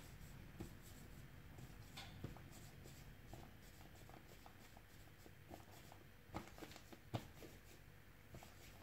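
Faint rubbing of palms rolling a long, thin coil of clay back and forth on a tabletop, with a few soft knocks.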